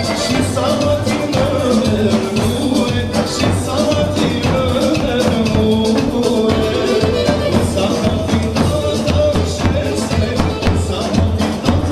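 Upbeat song with singing over a steady beat and shaken percussion.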